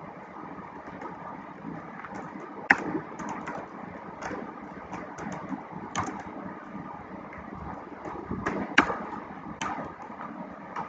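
Sparse, irregular clicks of a computer keyboard and mouse, a dozen or so short taps with gaps between them, over a steady faint background hum.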